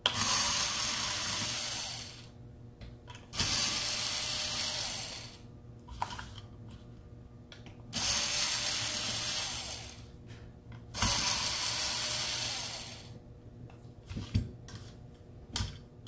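Small cordless electric screwdriver running in four bursts of about two seconds each, backing out the two screws on each side of a laptop hard drive's mounting bracket. A few light clicks of handling follow near the end.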